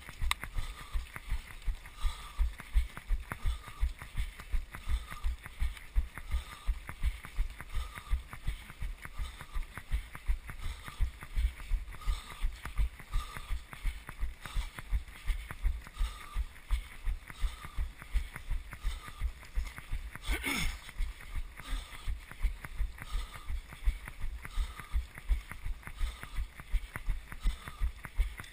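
Footfalls of a runner carrying a GoPro, heard as a steady train of low thuds about three a second as each stride jolts the camera. A single sharp crackle breaks in about twenty seconds in.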